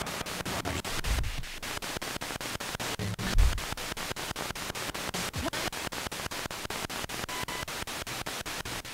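Ghost-hunting spirit-box radio sweeping rapidly through stations: a steady hiss of static broken by clicks about eight times a second. A couple of brief low bumps come through, the loudest about three and a half seconds in.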